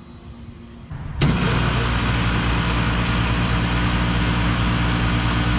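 Central air-conditioner condensing unit starting up: its scroll compressor kicks on with a sudden jump about a second in, then runs with a steady hum and rush.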